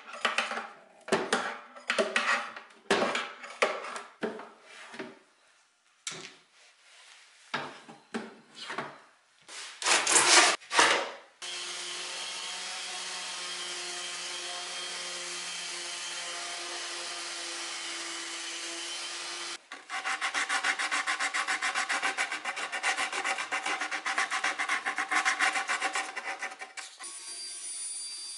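Quick hand-scraping strokes of a steel putty knife on a wooden drawer box, then a random orbital sander running steadily on the wood. About two-thirds of the way through, the sander turns louder and rougher. Near the end a table saw runs with a steady hum.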